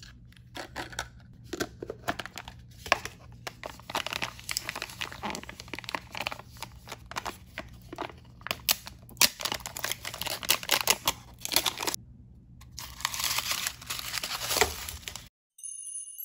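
Shiny plastic wrapper of an L.O.L. Surprise ball being crinkled and torn open by hand, in quick irregular crackles and rips. The sound stops abruptly shortly before the end.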